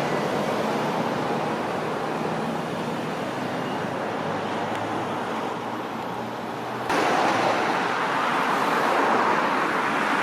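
Steady noise of road traffic, with an abrupt jump to a louder stretch about seven seconds in.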